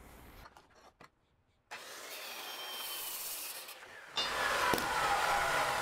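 Corded Ridgid circular saw winding down after a crosscut: a falling whine over a hiss, louder from about four seconds in, with a few light clicks.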